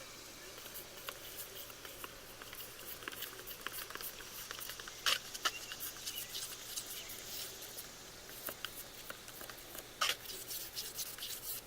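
Popsicle stick stirring and scraping thick gloss Mod Podge with food colouring in a small container, making quiet, irregular light clicks and ticks, a little louder about five and ten seconds in.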